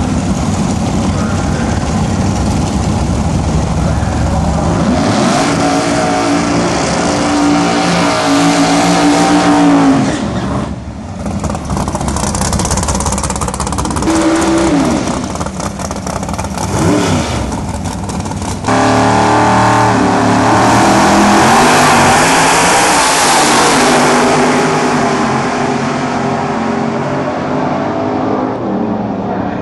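Two drag-race cars' engines revving hard during burnouts, then short throttle blips while staging. About 19 s in they launch at full throttle, loud and steady, and the sound fades slowly as they pull away down the strip.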